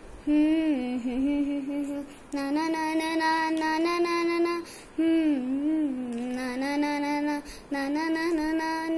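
A girl singing a Hindi song unaccompanied, in four long phrases of held, wavering notes with brief breaths between them.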